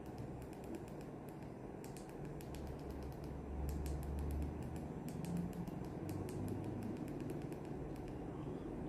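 Quiet, irregular clicks and small taps of someone eating a meal, over a low steady hum.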